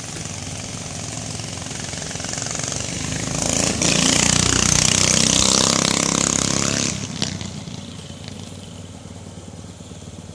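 A mini bike's small engine passes close by. Its sound builds up, is loud for about three seconds in the middle, then drops off and fades away.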